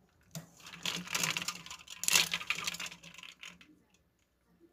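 Live kuruma prawns kicking in a glass bowl of ice water, their shells and the ice cubes clattering against each other and the glass in a rapid run of clicks that lasts about three seconds.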